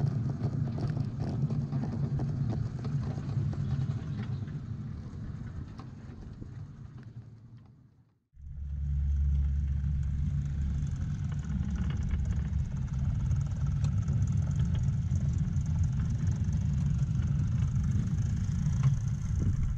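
A miniature-railway train running along the track, a steady low rumble. It fades away over the first few seconds and breaks off about eight seconds in, then starts again louder and runs on steadily.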